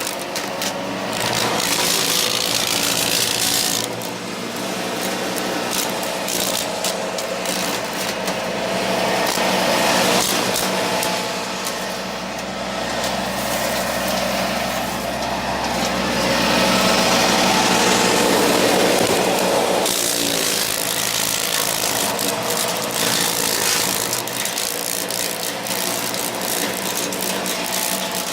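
Frontier WC1103 PTO wood chipper running off a John Deere 2032R tractor, the engine held at a steady speed, with louder grinding stretches as branches are fed through and chipped, about the first four seconds and again around the middle.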